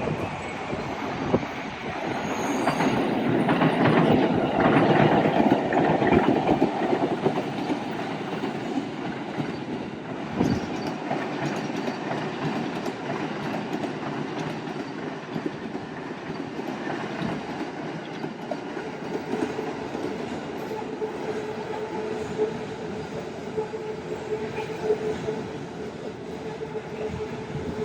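A train running on rails, with wheel clatter, loudest a few seconds in and then easing; a steady whine comes in during the second half.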